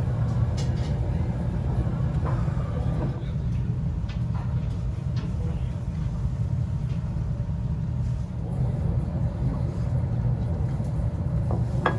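Restaurant ambience: a steady low hum, like a ventilation fan, with a few faint clicks of tableware and distant voices.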